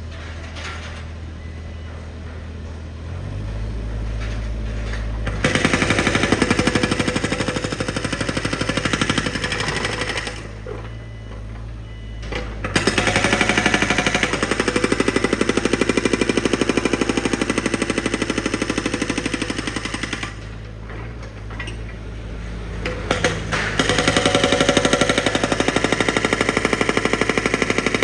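A construction machine's drill hammering rapidly and evenly in three long bouts, with the machine's diesel engine running steadily underneath and alone in the pauses between them. The engine note rises just before the first bout.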